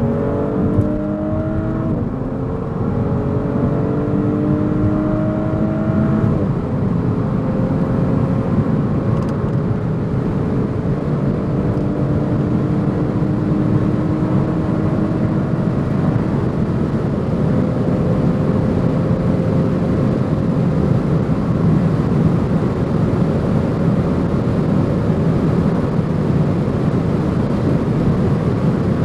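Audi S5 Sportback's V6 engine under full-throttle acceleration, its pitch climbing and dropping at upshifts about two and six seconds in, then rising only slowly in a high gear. Heavy wind and road noise runs under the engine at high autobahn speed.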